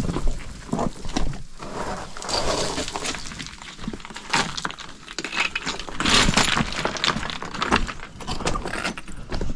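Footsteps crunching and scrambling over loose, crumbly rock rubble, with small stones clattering in many irregular knocks, loudest around six seconds in.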